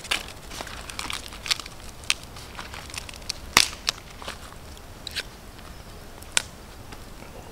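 Green husk leaves being torn off an ear of corn by hand: irregular crisp tearing and crackling snaps, the sharpest about three and a half seconds and six seconds in.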